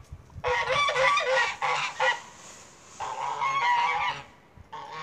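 A flock of domestic geese honking together in bouts of many overlapping calls, with short lulls between them.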